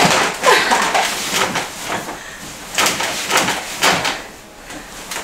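Soft thumps and rustling of knees landing on a mattress and duvet as a person hops side to side while kneeling on a bed, several irregular landings that die down near the end.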